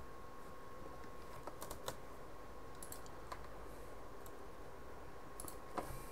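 Faint, scattered keystrokes on a computer keyboard, a few clicks at a time with pauses between them, over a faint steady tone.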